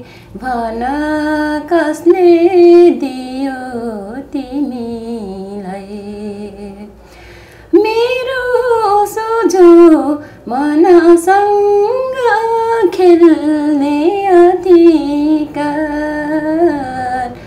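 A woman singing a slow song solo, with long held notes that waver. The tune sinks low and soft near the middle, then climbs and swells again.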